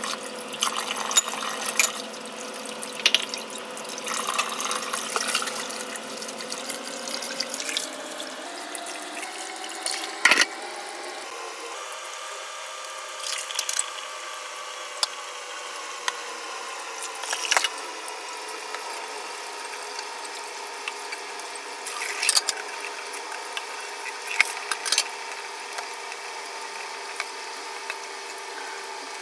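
Kitchen tap running into a steel sink as dishes are rinsed by hand, with the pitch of the water rising for a few seconds about eight seconds in. Scattered knocks and clatters of dishes and a plastic basin being handled in the sink.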